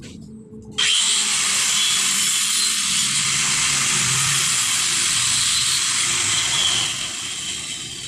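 Electric angle grinder cutting into ceramic wall tile, starting suddenly about a second in and running steadily with a high, harsh whine. Near the end it eases off and begins to wind down.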